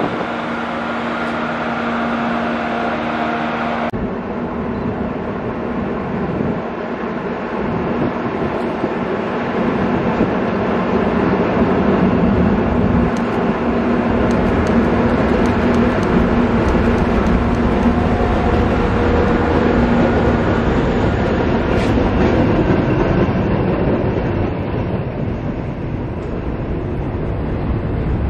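Diesel locomotive of a SEPTA rail work train running as it approaches and passes, followed by its rail-carrying flatcars rolling by on the track. The rumble grows to its loudest about midway and eases off near the end.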